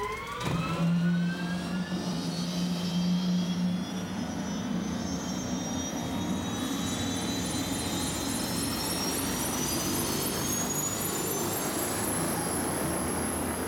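Aircraft turbine engine winding up: a slow rising whine over a low steady hum, louder in the first few seconds, with a faint rapid pulsing and a steady high tone joining in the second half.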